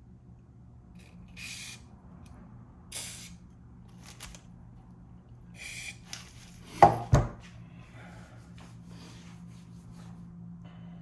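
Hand-tool work on the scooter's wheel: a few short scrapes, then two sharp knocks about a third of a second apart, over a steady low hum.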